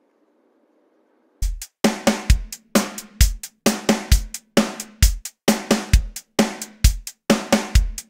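Near silence, then about a second and a half in a drum-kit beat starts: kick drum, snare and hi-hat hits in a steady rhythm, the opening of background music.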